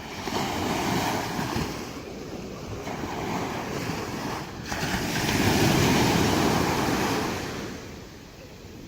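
Ocean surf washing onto a beach: a wave surges in about a second in, and a bigger one breaks and runs up from about five seconds in, then falls away near the end.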